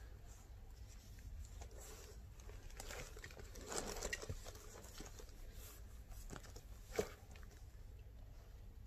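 Faint handling noise from a leather belt being turned over in the hands: soft rustling and rubbing, a louder rustle about four seconds in, and one sharp click near the end.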